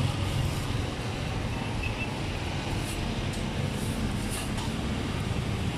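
Steady street background noise with a low rumble of passing traffic.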